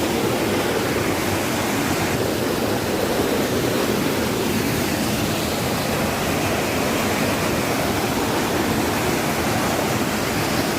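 Steady rushing water, like a waterfall, an even, unbroken roar with no change.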